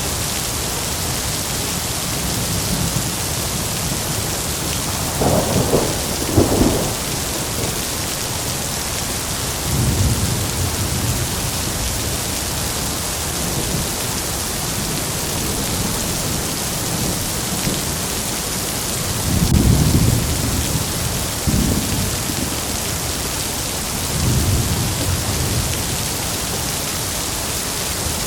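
Heavy rain falling steadily, with thunder rumbling several times. The sharpest claps come about six seconds in, and a longer roll comes about two-thirds of the way through.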